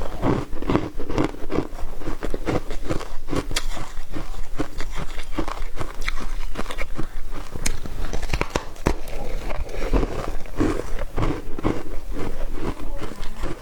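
A person biting and chewing foam ice close to the microphone: a continuous run of quick, crackly crunches.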